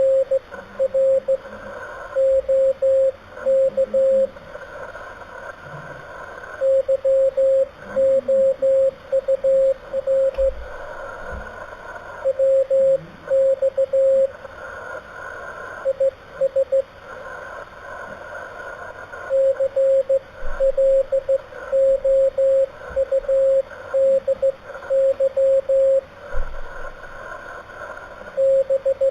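Morse code (CW) from an amateur radio station: a single mid-pitched tone keyed on and off into dots and dashes, sent slowly in groups with pauses between them, over a steady background hiss.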